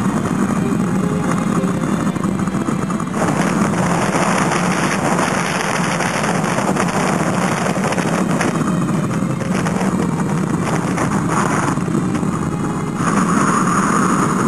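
Strong mountain wind buffeting the microphone, a loud steady rushing that grows stronger about three seconds in and again near the end.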